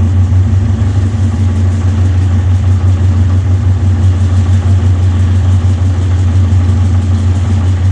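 A steady, loud low machine hum with a fast even pulse, like an engine running at idle, unchanged throughout.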